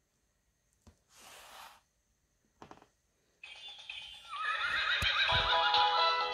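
Usborne sound book's electronic sound chip playing a horse whinny that runs straight into a tinny tune, preceded by the rustle and knocks of the board book being opened.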